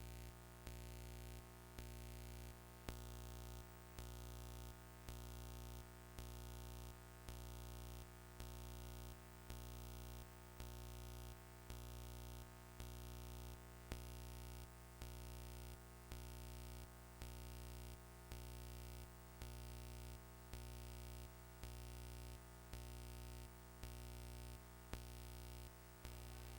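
Faint steady hum of several fixed tones that swells with a soft click about once a second, over and over.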